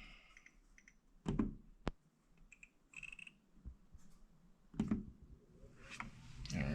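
A few scattered knocks and sharp clicks, with a brief cluster of short high beeps near the middle, as a gas furnace is being switched on.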